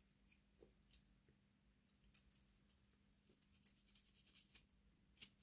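Near silence with faint, scattered clicks and taps of small plastic and metal model-locomotive chassis parts being handled and fitted together. The clicks come more often toward the end, with a sharper one near the close.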